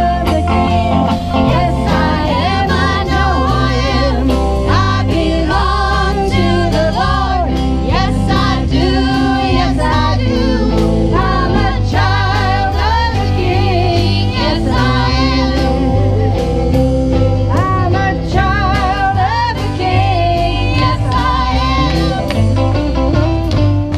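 A live country gospel band playing and singing, with guitars, drums and several voices over a steady bass.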